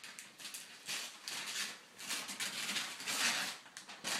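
Wrapping paper rustling and crinkling in irregular bursts as a gift is unwrapped.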